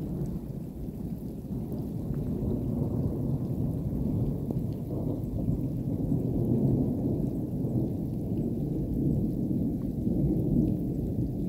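Wind buffeting the microphone under a storm: a continuous low rumble that swells a little louder around the middle.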